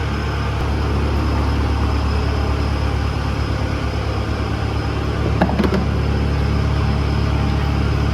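An engine idling with a steady low hum, with one brief sharp clink about five and a half seconds in.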